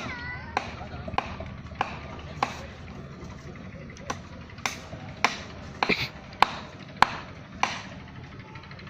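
Repeated sharp strikes of a hand tool on a hard surface, about one every 0.6 seconds at first, then less even, with a few quick double blows near the middle.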